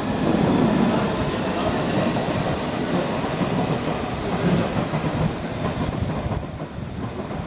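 A train running past at a station platform, a steady rumble of wheels on rails that eases off about six seconds in.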